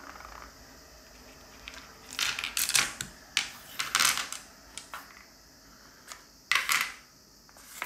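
Plastic six-sided dice clicking and clattering in several short bursts as a rolled handful is picked through and set aside by hand on the table.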